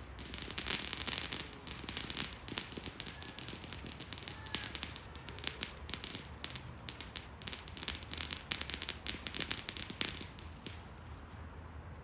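Crackling fireworks: a dense, irregular run of rapid small pops and crackles that stops abruptly near the end.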